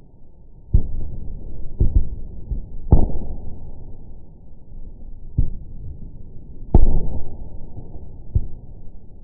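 Fireworks bursting, slowed down by slow-motion playback into deep, drawn-out booms: six over the span, the loudest about three and seven seconds in.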